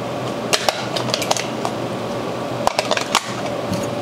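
AA batteries clicking and rattling as they are pressed one by one into the plastic battery compartment of an RC transmitter, with a number of sharp, irregular clicks.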